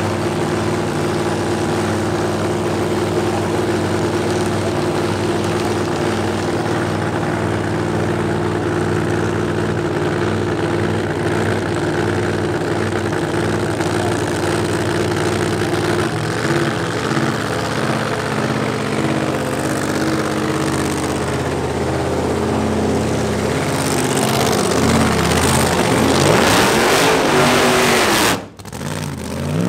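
Nostalgia funny car's supercharged V8 idling loud and steady. The engine note changes about halfway through, and near the end it revs up and down before dropping out abruptly for a moment.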